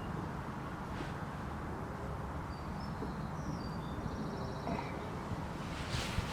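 Outdoor background: a steady low rumble, with a few faint high bird chirps midway.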